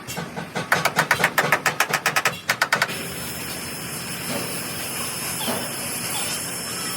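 A rapid run of sharp knocks, about nine a second, for nearly three seconds, then a steady hiss.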